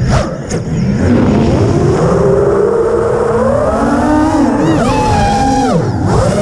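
FPV racing quadcopter's electric motors and propellers whining, the pitch following the throttle: climbing slowly, then dropping sharply and rising again near the end, over a low rush of wind noise.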